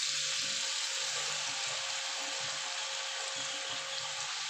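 Bitter gourd pieces coated in rice flour and besan deep-frying in hot oil in a kadhai: a steady, dense sizzle.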